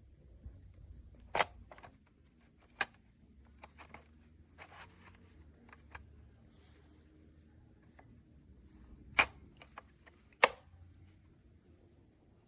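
Irregular sharp clicks and knocks of small objects being handled, four louder ones spread over the stretch with softer ticks and brief rustles between.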